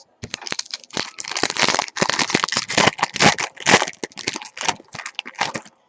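Foil trading-card pack wrapper being torn open and crinkled: a dense, irregular crackling that lasts about five seconds.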